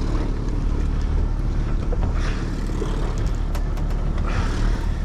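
A boat's engine running steadily with an even low hum, as heard from aboard the boat.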